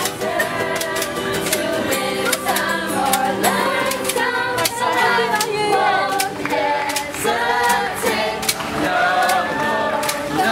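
A group of voices singing a song over music with a steady beat.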